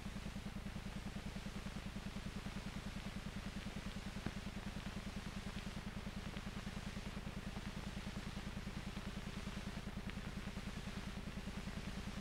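Steady low machine hum that pulses evenly about ten times a second, with a faint steady tone above it and one small click about four seconds in.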